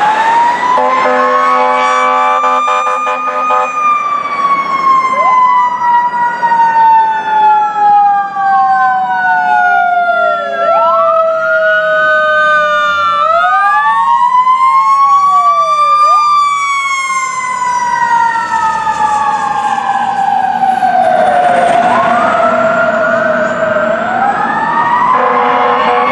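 Fire engine's Federal Q2B mechanical siren winding up and slowly coasting down in pitch, with an electronic wail siren sweeping up and down over it. Air horn blasts sound about a second in and again near the end.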